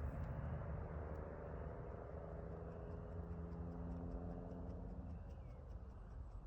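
A low rumble with a steady droning hum of several pitches over it, which stops about five seconds in.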